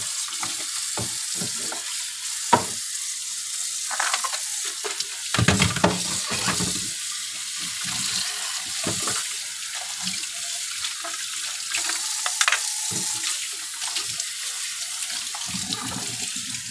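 A steady hiss with scattered clinks and knocks of kitchenware being handled: a sharp clink about two and a half seconds in, and a cluster of duller knocks a few seconds later.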